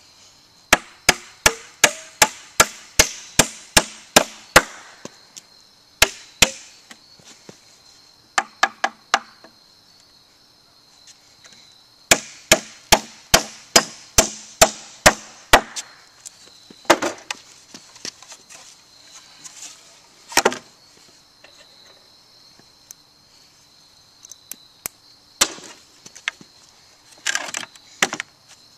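Hammer driving nails into a pine 2x4 by hand: runs of sharp strikes, about three a second, with pauses between them. A steady high insect drone runs underneath.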